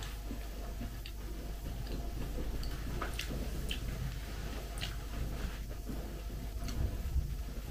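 A fork clicking lightly against a plate now and then as someone eats, with faint chewing in between.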